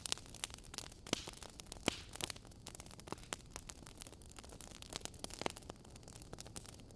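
Wood fire burning in a fireplace: logs crackling, with frequent sharp irregular pops over a soft steady hiss of flame, the loudest pops about a second and two seconds in.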